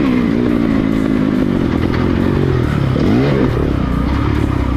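Motocross dirt bike engine running, its pitch dropping as the throttle comes off and climbing again about three seconds in.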